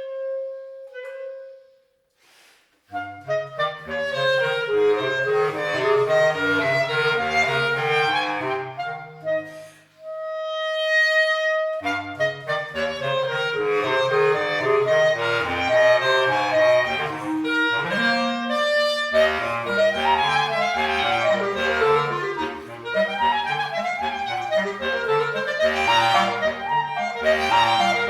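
Clarinet playing over an accompaniment of stepping low bass notes. A held note tails off into a short break about two seconds in, then come quick runs. About ten seconds in a single held clarinet note sounds alone before the music resumes.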